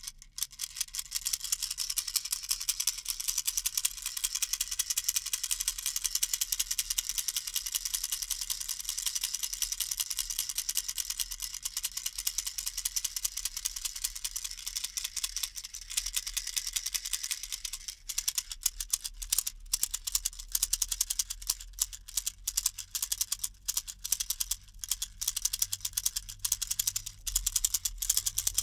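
Baby rattle shaken continuously, a dense rapid patter of small rattling clicks. About two-thirds of the way in the shaking becomes more uneven, with separate clicks and short breaks.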